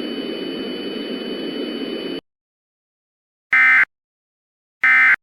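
Steady static hiss with a faint high whine that cuts off suddenly about two seconds in. Then come two short, identical bursts of Emergency Alert System SAME data tones, about a second and a half apart: the end-of-message code that closes the alert.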